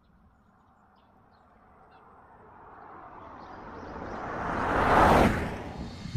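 A car driving past on the road. Its tyre and engine noise rises out of near silence, peaks about five seconds in as it goes by, then falls away.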